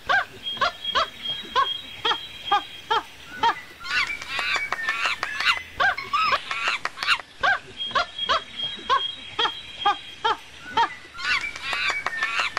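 A chorus of short, repeated animal calls, several a second, twice joined by a thin steady high tone; the pattern repeats about every seven and a half seconds, like a looped track.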